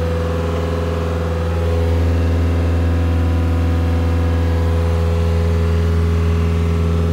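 Cat 289C compact track loader's diesel engine running steadily, heard from inside the cab as a deep, even hum that grows slightly louder about two seconds in.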